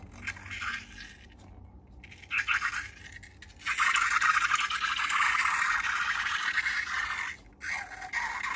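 Slime-making materials being handled, giving a crackly rattling and scraping. It comes first in short bursts, then as a continuous dense crackle from about three and a half seconds in, with a brief break near the end.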